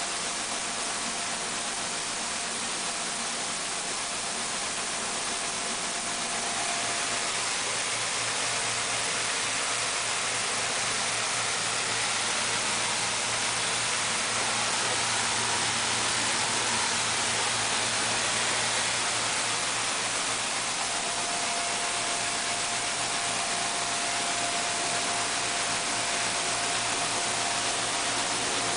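Coin-operated rice milling machine running: a steady whirring hiss with a low hum underneath, getting a little louder a few seconds in.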